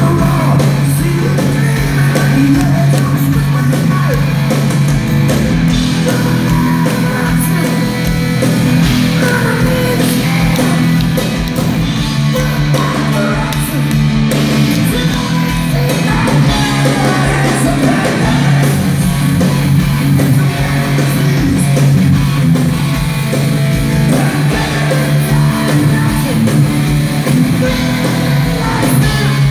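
Heavy metal band playing live: distorted electric guitars, bass guitar and drums, with a male lead singer.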